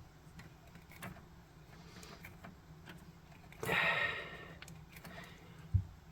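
Small handling sounds from work on a pinball wiring connector and its pins: faint scattered ticks, a short rustle about three and a half seconds in, and a soft knock near the end.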